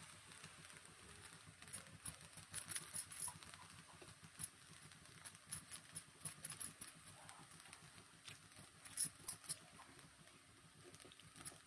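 Faint, irregular clicks and taps of kitchen utensils, a few louder ones about three seconds in and again about nine seconds in.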